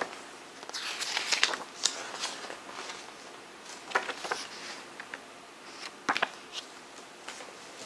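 Rustling and flapping of a paper CD booklet as it is handled and its pages are turned, in several short separate rustles with quieter gaps between.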